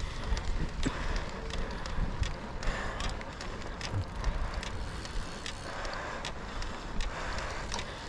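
Cyclocross bike ridden over a dirt and gravel course: tyres rolling, with frequent sharp clicks and rattles from the chain and frame over bumps, and wind rumble on the microphone.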